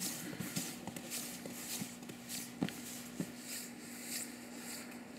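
Footsteps climbing concrete steps, with the swish of nylon ski suits at each stride and a few light knocks.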